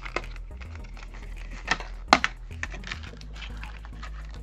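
Clear plastic packaging of an NVMe SSD crackling and clicking as it is opened by hand: a handful of sharp clicks, the loudest about two seconds in. Background music plays underneath.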